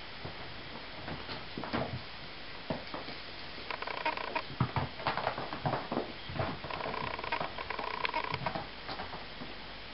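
Kittens playing on carpet and a carpeted cat tower: irregular light patters, scrabbling and small thumps of paws and bodies. A steady tone sounds twice, briefly about 4 seconds in and longer from about 7 to 8.5 seconds.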